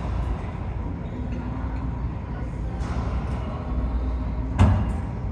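Racquetball play: a few sharp smacks of the ball off racquet and walls, the loudest about four and a half seconds in, over a steady low rumble.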